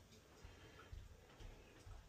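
Near silence: room tone with a few faint low thumps.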